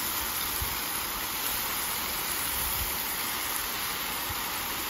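Marinated kalbi beef short ribs sizzling on a Blackstone flat-top griddle: a steady, even sizzle.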